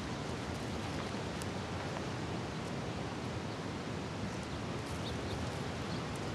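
Steady hiss of wind buffeting the microphone, with a few faint ticks.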